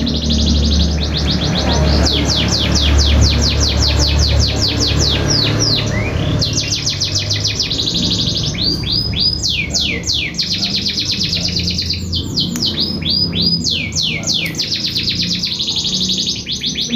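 Lovebird chirping loudly in fast runs of sharp, high chirps, broken by a few short pauses.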